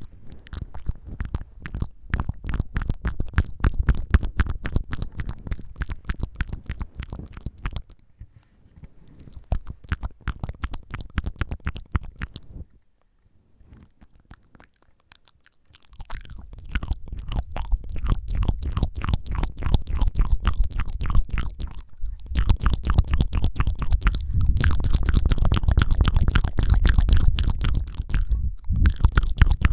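ASMR mouth sounds: the tongue fluttering and flicking close to the microphone in dense runs of rapid clicks, broken by a pause of about three seconds in the middle.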